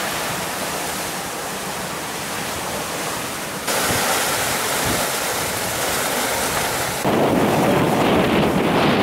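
Wind buffeting the microphone and water rushing past the hull of a sailboat under way, with no engine heard. The sound changes abruptly twice, about a third and two-thirds of the way through, growing louder at each change.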